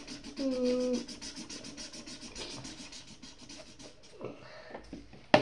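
Colouring on paper: quick back-and-forth scribbling strokes, about seven a second, that stop a little before four seconds in. A sharp knock near the end.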